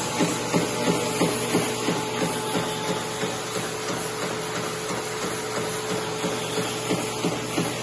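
Wire straightening and cutting machine running, with a steady mechanical hum and a regular clatter about three times a second.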